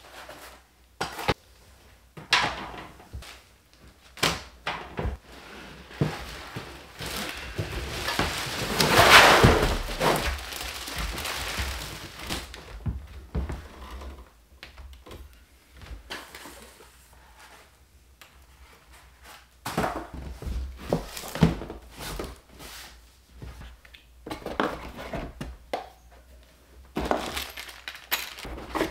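Table saw packaging being handled during unboxing: scattered knocks and thunks of parts and box, with a longer scraping, rustling stretch of a few seconds that is loudest about nine seconds in.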